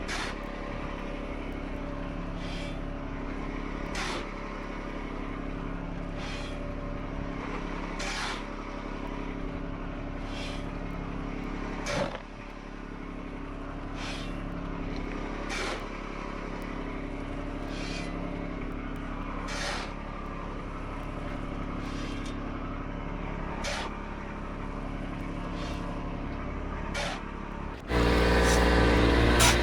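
Skid steer engine running steadily at low throttle, with sharp knocks every second or two. Near the end it is throttled up suddenly and runs much louder.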